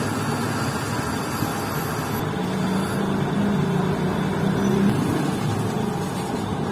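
A motor running steadily with a low, slightly wavering hum over a noisy rumble.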